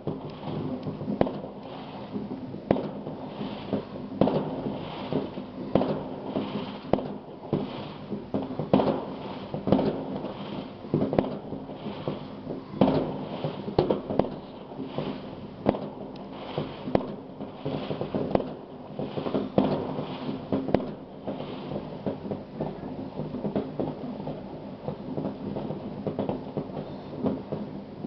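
Many fireworks and firecrackers going off at once, a dense, irregular run of bangs and crackles with no break, some bangs louder than the rest.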